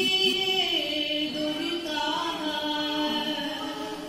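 A woman singing solo without accompaniment, a slow melody of long held notes.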